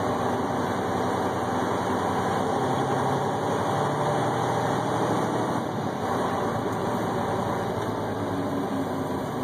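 Freightliner Cascadia's diesel engine pulling under acceleration, heard from inside the cab, as the Eaton UltraShift PLUS automated transmission upshifts from fourth to fifth gear a little past halfway.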